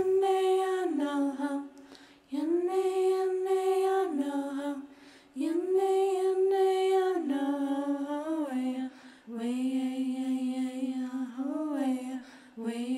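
A lone voice singing unaccompanied in long held notes, in four slow phrases with short breaks between them; each phrase steps down from a higher note to a lower one.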